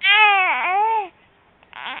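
Three-month-old baby crying in a cough-like manner: one cry of about a second that falls and rises in pitch. A short raspy breath follows near the end.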